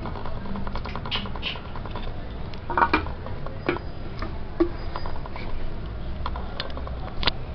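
Light taps and knocks of a baby's hands patting and pushing a plastic water bottle over a mat, irregular, with a few sharper knocks, the loudest about three seconds in.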